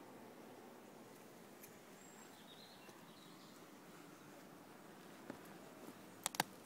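Faint outdoor background hiss, then a few sharp clicks near the end: footsteps on rocky, stony ground.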